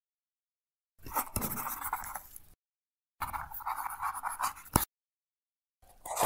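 Pen scratching on paper, a writing sound effect: two scratchy strokes of about a second and a half each, then a short one near the end.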